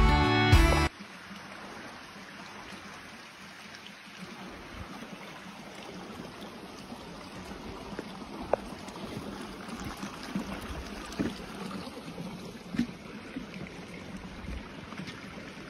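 A music track cuts off about a second in. Then a small creek trickles steadily, with scattered low thumps and a few sharp clicks from footsteps on the trail.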